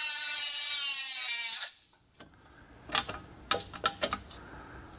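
A 3-inch cutoff wheel cutting metal: a high whine over a loud hiss, which stops abruptly about a second and a half in. A few light metallic clicks and knocks follow.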